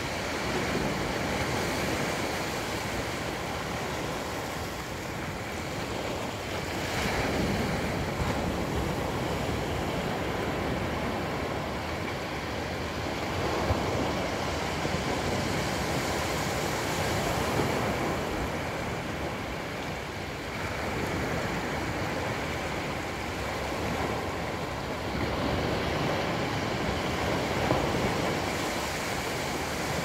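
Small ocean waves breaking and washing up a flat sandy beach: a continuous rush of surf that swells and eases every few seconds.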